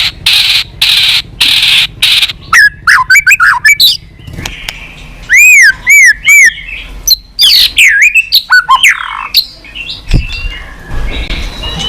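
White-rumped shama (murai batu) singing loudly: a quick run of about five harsh rasping notes, then varied whistled phrases, including three clear arched whistles about halfway through.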